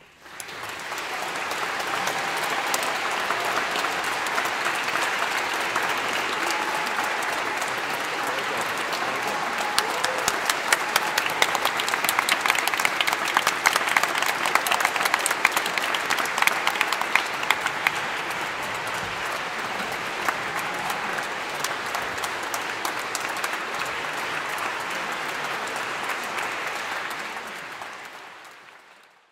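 Audience applauding: dense clapping that swells to its loudest around the middle and fades out near the end.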